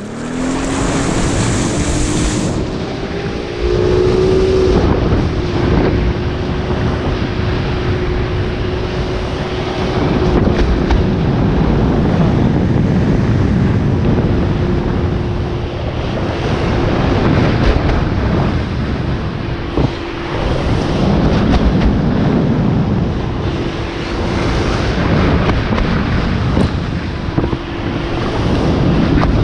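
Towboat engine climbing in pitch as it pulls a slalom water-skier up out of the water, then holding a steady pitch at tow speed. Under it is the steady rush of the ski cutting through the water and wind buffeting the microphone.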